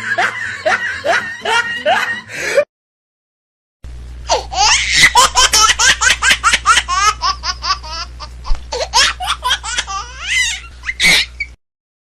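Laughter in quick repeated bursts. It breaks off into about a second of dead silence some two and a half seconds in, then a longer, hearty run of laughter follows and stops abruptly near the end.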